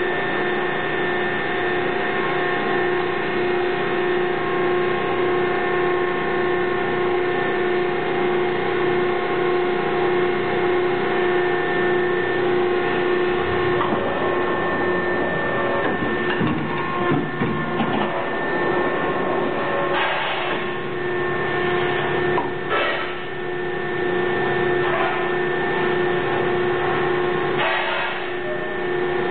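Industrial hydraulic die-cutting press running with a steady hum of several held tones. In the second half come a few short knocks and scrapes as the die and the cut parts are handled on the cutting table.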